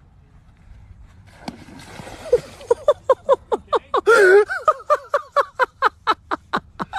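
People laughing hard in quick, evenly spaced bursts, about three a second, starting about two seconds in, with one louder, longer cry about four seconds in. A brief rush of hiss comes just before the laughter begins.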